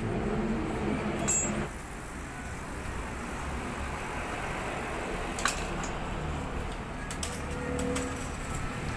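A few light, irregular metallic clinks of small parts being handled, one with a brief high ring, over a steady low rumble of background traffic.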